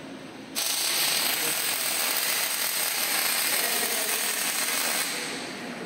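Robotic wire-fed (MIG-type) arc welding: the arc strikes suddenly about half a second in and runs as a steady hiss for about four and a half seconds before stopping.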